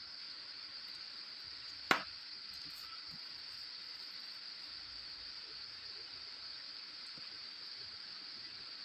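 A steady high-pitched hiss throughout, with one sharp click about two seconds in.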